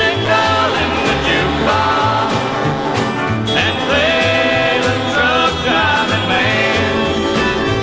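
Country music with guitar and a steady beat, an instrumental stretch without singing.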